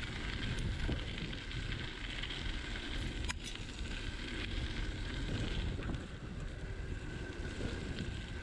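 Bicycle rolling along a gravel path, with wind buffeting the microphone over the rumble of the tyres; a sharp double click about three seconds in.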